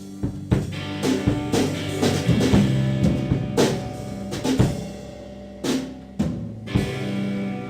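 Live band music without vocals: drum kit strikes, snare and cymbal hits roughly once or twice a second, over held low instrument notes.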